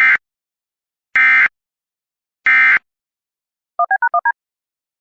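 Emergency Alert System end-of-message data bursts: three identical short bursts of screechy digital tones about a second and a quarter apart, marking the end of the alert. About a second after the last burst comes a quick run of five short two-tone beeps.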